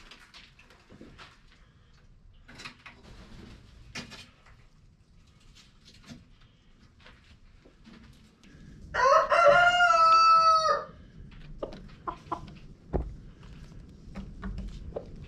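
A rooster crows once, about nine seconds in, a call of nearly two seconds that falls away at the end. Faint scattered clicks and knocks come before and after it.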